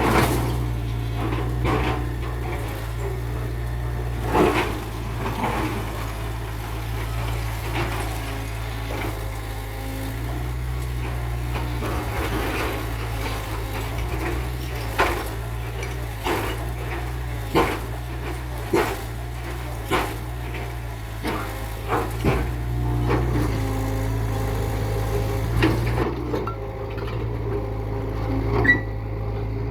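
Heavy earthmoving machinery running: a steady low engine drone with irregular sharp metallic clanks and knocks scattered throughout.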